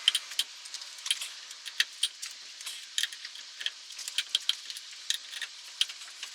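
Many light, irregular metallic clicks and taps, several a second, of hand tools and parts being handled during work on a truck's rear wheel and suspension.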